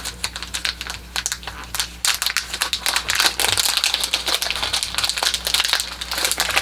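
Small product packaging crinkling and rustling as it is handled and unwrapped by hand, in a dense run of crackles that gets busier about two seconds in.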